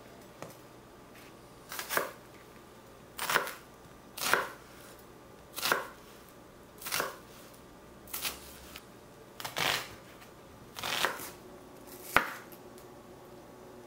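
Santoku knife cutting through a peeled onion onto a wooden cutting board: about nine separate cuts a little over a second apart, each a short crunch that ends on the board. The last cut is the sharpest and loudest.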